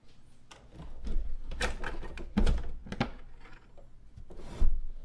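Clicks, knocks and rattles from a horn gramophone being handled and set up to play, with a sharper knock near the end.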